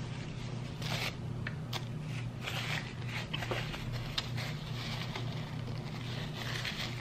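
Paper napkin crinkling and rustling as it is handled and pressed to the mouth, with a few sharp clicks among the rustles. A steady low hum runs underneath.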